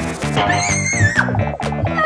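Upbeat background music with a steady beat, with a wavering high-pitched sound effect that rises and falls for about a second, from roughly half a second in.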